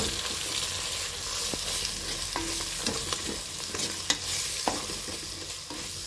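Ground chilli, coriander and turmeric powders being stirred into hot coconut oil with shallots and whole spices in a pressure cooker: a steady sizzle of the masala frying, with the wooden spatula scraping and knocking against the pot every second or so.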